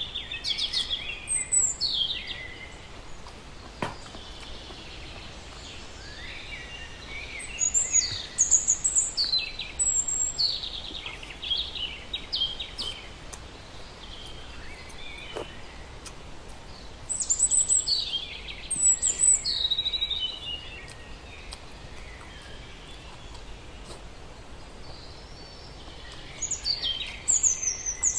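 Birds singing in bouts of quick, high chirps that fall in pitch, four bursts a few seconds apart, over a steady outdoor background hum.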